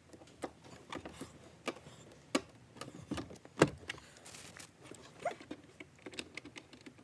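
Scattered clicks and knocks of a car's glove box and dash trim being handled and fitted back into place, with one sharper knock about three and a half seconds in.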